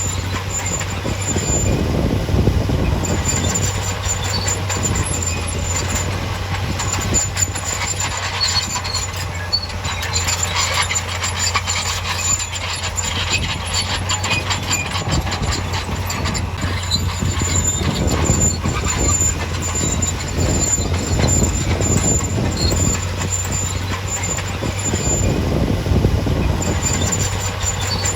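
Crawler bulldozer working: its diesel engine runs steadily under a continuous clatter of steel tracks, with a thin high squeal that comes and goes.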